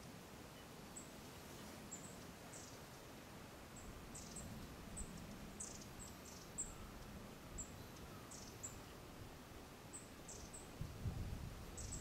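Faint, very high, thin call notes of small birds: short single peeps scattered about once a second, with a few quick downward-sliding notes, over a soft steady hiss. A low rumble comes in near the end.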